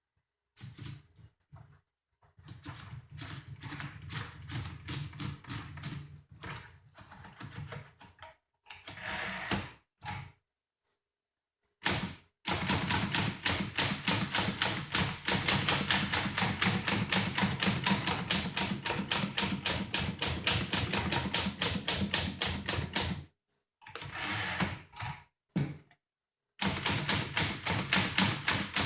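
1953 Tower Challenger manual typewriter: quieter, irregular clicks and rustling as paper is wound in, then rapid, even keystrokes. The typing breaks off briefly for a few separate mechanical sounds and then resumes.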